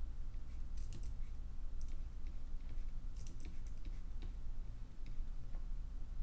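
Light, irregular clicking and tapping at a computer desk, some clicks coming in quick little clusters, over a steady low hum.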